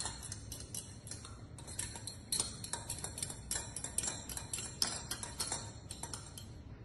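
A metal spoon stirring paint into water in a small stainless steel cup, striking the cup's side in quick, irregular light clinks that ring briefly.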